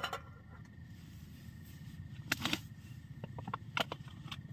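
A plastic water bottle being handled: a couple of light knocks, then a run of small sharp clicks as its cap is twisted, over a low steady background hum.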